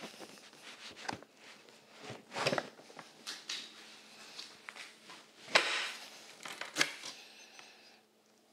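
Givi Trekker Dolomiti DLM30 top case being set down and fitted onto its Monokey mounting plate. It makes a series of knocks and clacks, the sharpest about halfway through as the case seats on the plate.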